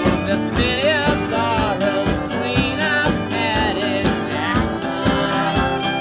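Country-style rock recording: acoustic guitar strummed on a steady beat of about two strokes a second, with a voice singing and a fiddle over it.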